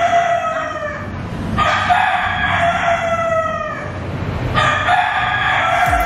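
Rooster crowing: three long crows of about two seconds each, each dropping in pitch as it trails off. The first is already under way at the start.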